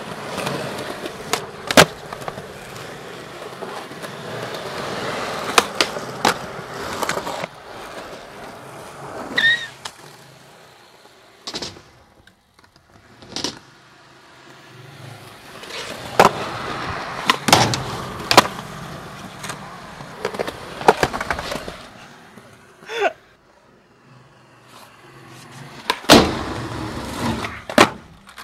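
Skateboard wheels rolling over concrete, with a dozen or so sharp clacks of the board popping and landing spread through, between stretches of quieter rolling.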